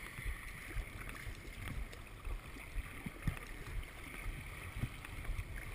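Muffled rush of river rapids around an inflatable kayak, with a few soft low knocks of water against the boat.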